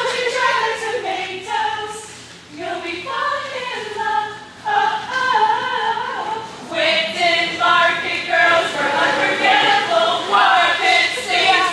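A group of voices singing or chanting a cheer together in unison, unaccompanied, with a sing-song melody that rises and falls.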